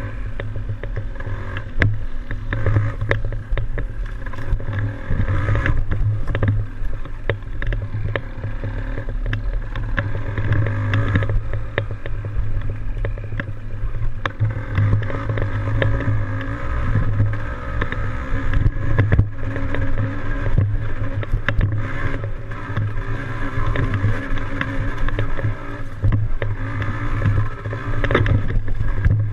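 Yamaha DT175 single-cylinder two-stroke dirt bike engine running steadily under way, with frequent short knocks.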